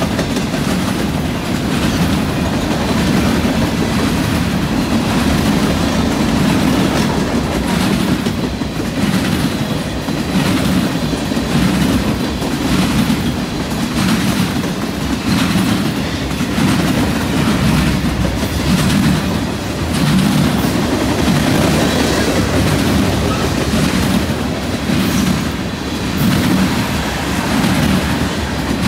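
Freight train cars, covered hoppers and then tank cars, rolling past close by. A steady loud rumble with wheels clacking over the track again and again.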